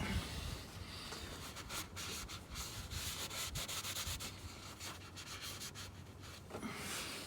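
Rag rubbing, wiping oil off an engine oil drain plug, in irregular scuffing strokes.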